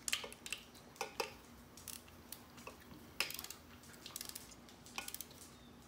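Hand tools clinking on the engine: a socket and torque wrench being fitted onto and worked on the intake manifold bolts, as they are torqued in sequence, giving a scattered series of sharp metal clicks and clinks.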